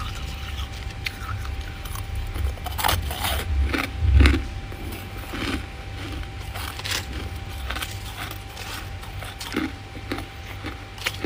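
Thick freezer frost crunching and being scraped, in irregular crisp crackles and scratches, busiest a few seconds in. A steady faint hum runs underneath.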